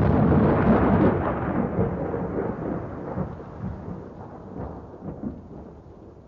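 A deep, thunder-like rumble, the tail of a boom, dying away gradually; the higher part of the sound fades first.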